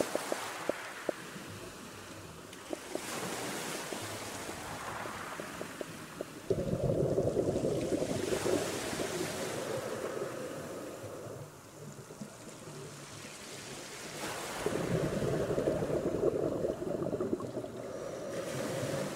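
Scuba diver breathing through a regulator underwater: brief hissing inhalations alternating with long, louder gurgling rushes of exhaled bubbles, one about a third of the way in and another near the end, with a few small clicks and pops early on.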